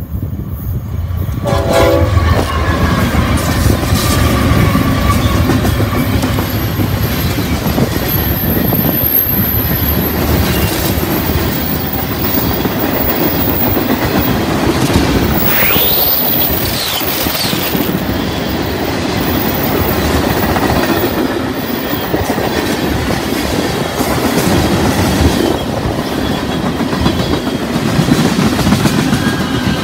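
BNSF freight train passing close by: the diesel locomotives arrive and get loud about two seconds in, then a long string of covered hoppers and tank cars rolls past with a steady rumble and clacking of wheels over the rail joints.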